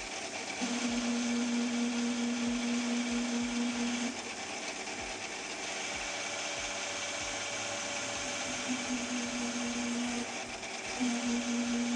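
Metal lathe running while turning a shoulder into a brake rotor: a steady hiss with a strong hum over it, which fades out for several seconds around the middle and briefly again near the end.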